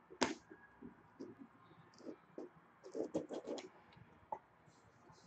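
Hands opening a trading card box and handling its packaging and card: scattered scratches and sharp clicks, with a quick run of clicks about three seconds in.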